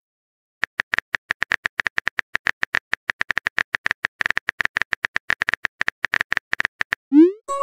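Virtual phone keyboard typing clicks: a rapid run of short taps as a text message is typed out letter by letter. Near the end it is followed by a quick rising swoosh as the message is sent.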